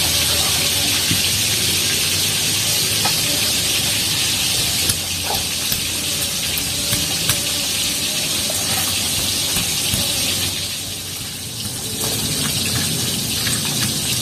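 Fish frying in hot oil in a large wok: a steady sizzle, with a few faint knocks. The sizzle eases briefly about ten seconds in.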